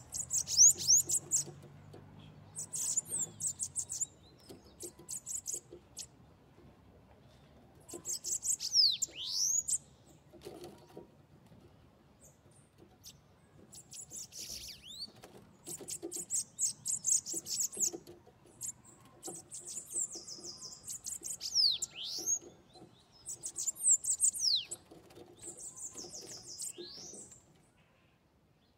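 Caged bananaquit (sibite) singing: short, high, rapid phrases of clicking notes with sharp downward sweeps, repeated about every two to three seconds with brief pauses between them.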